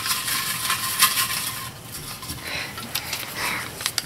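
Folded paper slips shaken and stirred inside a glass jar: a dense rustling with many small clicks against the glass. It eases off about two seconds in, leaving a few softer paper rustles as a slip is pulled out.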